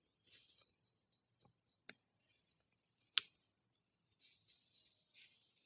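Quiet handling of a small plastic power bank: faint rustles, a soft click about two seconds in, and a sharp click about three seconds in, typical of its power button being pressed.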